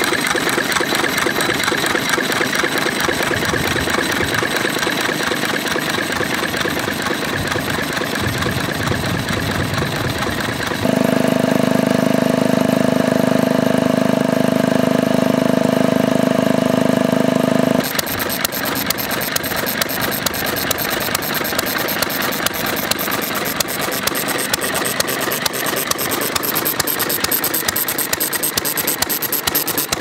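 Small vintage stationary engines running: a Ruston & Hornsby ZPR 2 hp engine with a fast, even beat, its flywheels turning. About eleven seconds in it gives way to a louder, steady hum, from a 1947 Stuart R2Y ¾ hp engine driving a water pump, and some seven seconds later the fast, even beat of the Ruston returns.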